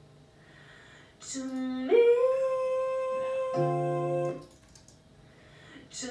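Playback of a solo female vocal take: a sung note that leaps up about an octave and is held for a couple of seconds, with a brief lower tone under it near the end of the hold. The same phrase starts again near the end.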